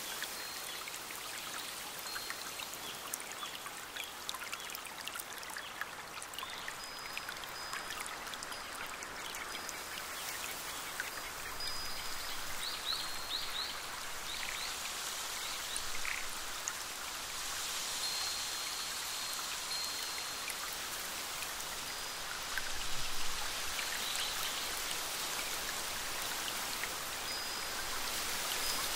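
Steady splashing and pattering of running water, as of a small stream over rocks, with many small drip-like ticks. A few short, high bird notes come and go over it, with a quick run of chirps about twelve seconds in.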